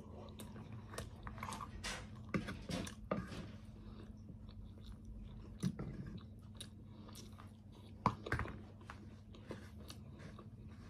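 Close-miked eating: a person chewing and biting bread and breakfast food, with wet mouth sounds and small crunches in an irregular run of short clicks, the sharpest about eight seconds in. A faint steady hum runs underneath.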